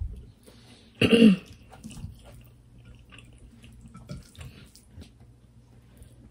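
Quiet eating sounds of people eating with their hands: wet mouth clicks and chewing, with small ticks of fingers on plates. One brief vocal sound from one of them about a second in is the loudest thing.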